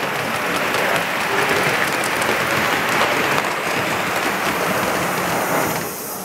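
Live-steam model locomotive running, giving a steady hissing, crackling rush of steam that falls away sharply near the end.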